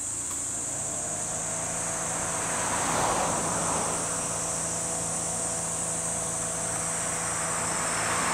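Steady high-pitched insect drone of summer cicadas, over a low mechanical hum that comes in about a second in. Two swells of rushing noise rise and fade, around three seconds in and near the end.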